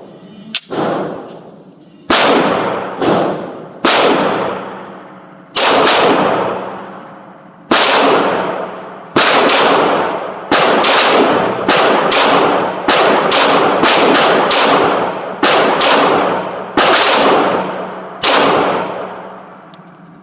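Firearm fired as single shots, about twenty of them at uneven intervals, coming faster in the middle. Each shot has a long echoing tail.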